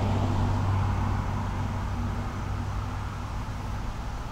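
Gusty wind from a hurricane's outer bands rushing and buffeting the microphone with a low rumble, easing a little toward the end.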